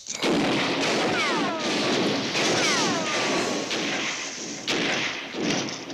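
Cartoon gunfight sound effects: a dense, continuous volley of overlapping revolver shots with falling ricochet whines, two of them in the first half.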